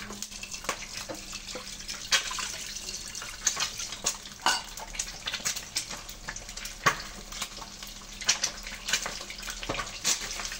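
Food frying in hot oil in a pan: a steady sizzle with many irregular sharp pops and crackles.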